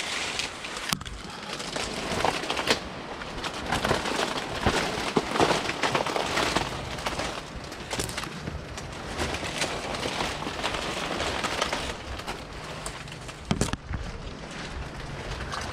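Dry leaves and fronds rustling and crackling as someone pushes through them close to the microphone, with a few sharper snaps.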